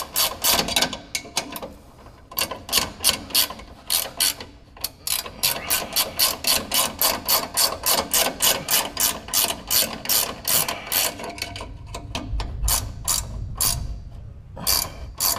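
Hand ratchet wrench clicking in quick back-and-forth strokes, about three to four clicks a second, as it runs a freshly Loctited nut onto a bolt, with a few short breaks and a quieter lull near the end.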